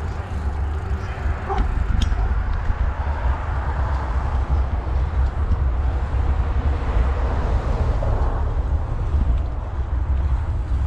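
Steady low rumble of wind buffeting the microphone with tyre noise while riding a bicycle along a paved path, with a brief click about two seconds in.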